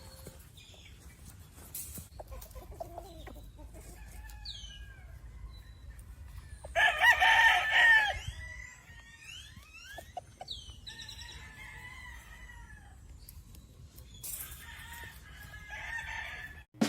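Chickens clucking and calling, with a rooster crowing loudly once about seven seconds in.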